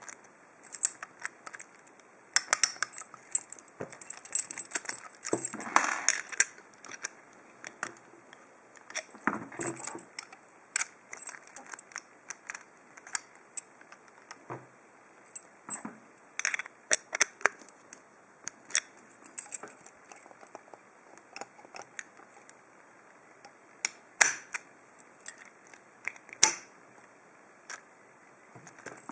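Small metal parts of a Lockwood padlock being handled during reassembly: irregular light metallic clicks, taps and short rattles, with a few sharper knocks.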